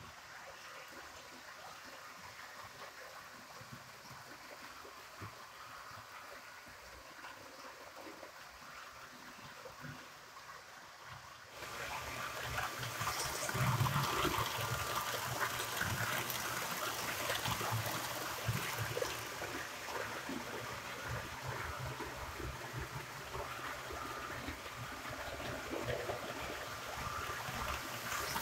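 HO-scale model trains (E444 electric locomotive hauling UIC-X coaches) running on the track: the wheels roll with a steady rush and many small clicks. Faint at first, it gets suddenly louder about twelve seconds in as the trains pass close by.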